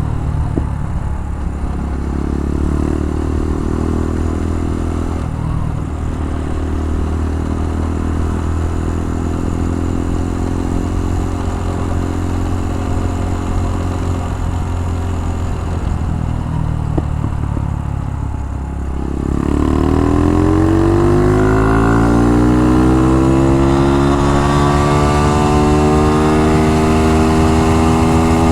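Single-cylinder four-stroke engine of a Dax-style minibike with an exhaust leak, running steadily while being ridden. A little past the halfway point it eases off briefly, then revs up with a long rising pitch as the bike accelerates, levelling off near the end.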